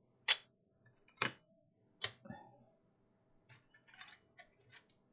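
Metal selenium rectifier plates being set down one after another on a workbench: three sharp clicks about a second apart, then a few faint light clinks and scrapes.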